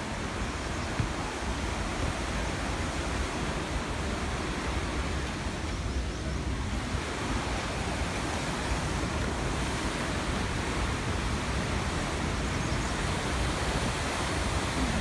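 Steady rushing of river water or a waterfall, an even hiss with a low rumble and no breaks.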